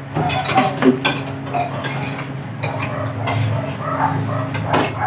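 Spoons and forks clinking and scraping against ceramic plates and bowls during a meal, with sharper clinks near the start and near the end, over a steady low hum.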